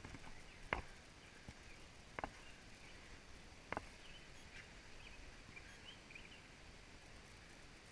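Faint outdoor forest ambience with three sharp taps about a second and a half apart, then a few faint high chirps of small birds.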